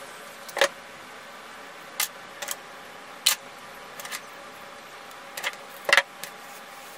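Sharp clicks and taps, about eight scattered irregularly, over a steady hiss, from hair clips and a steam hair straightener being handled while hair is sectioned.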